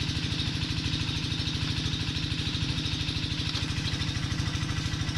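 A small engine idling steadily with an even, rapid chug.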